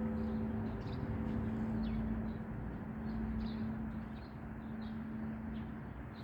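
The low hum note of a church bell lingers on after the ringing has stopped. Small birds chirp repeatedly over a low outdoor rumble.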